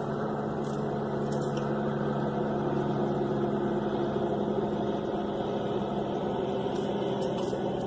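A steady engine hum, a low drone holding an even pitch.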